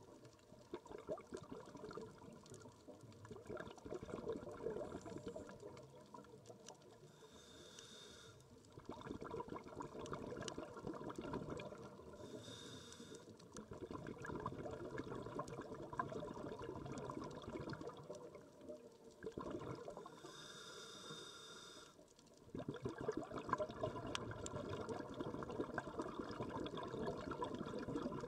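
A scuba diver breathing through a regulator, heard underwater: three short hissing inhalations, each followed by a long, crackling stream of exhaled bubbles.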